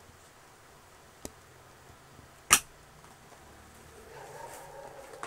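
Hard plastic toy stroller parts being handled and clipped together: a light click, then one sharp snap about two and a half seconds in. A faint wavering tone comes in over the last second or so.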